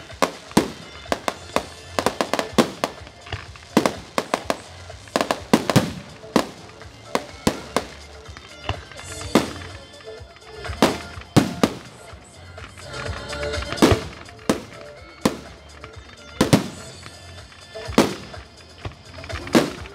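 Aerial fireworks display: a quick run of bangs and crackles for the first several seconds, then separate louder booms a second or so apart, with music playing underneath.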